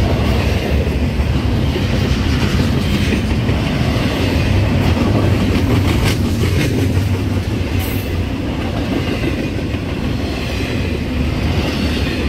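Double-stack intermodal freight train's cars rolling past close by: a steady, loud rumble of steel wheels on rail, with a few sharp clicks over rail joints about six seconds in.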